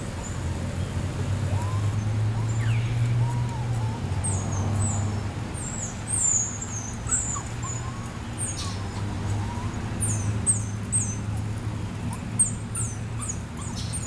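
A dog whining softly in short squeals, over groups of quick high chirps and a steady low hum.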